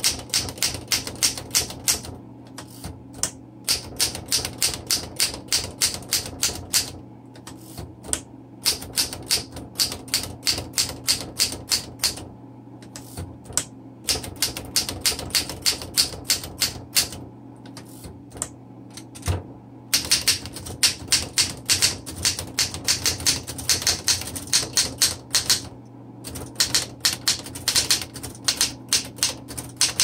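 1929 Royal 10 manual typewriter being typed on: runs of sharp typebar strikes on the platen, several a second, broken by short pauses.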